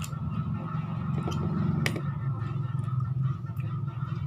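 A spoon clicking a few times against a dish, the clearest click about two seconds in, over a steady low hum.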